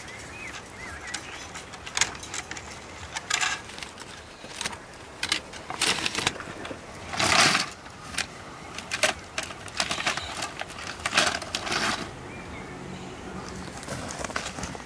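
Dry reed canes knocking and rustling as they are handled and bound with wire onto a reed wall: a run of irregular clicks and short scraping rustles, the loudest about seven seconds in, dying down after about twelve seconds.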